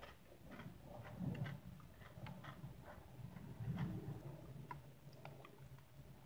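Close-up, soft mouth sounds of chewing Oreo cookies in whipped cream: many small wet clicks and smacks at an uneven pace.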